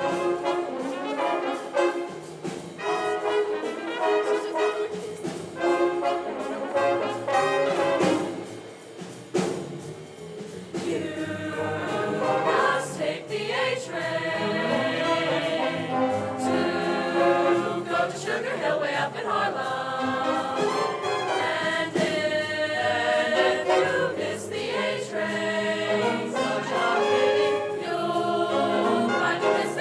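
A high school jazz ensemble with brass, trumpets and trombones, playing together with a vocal choir that sings over the band.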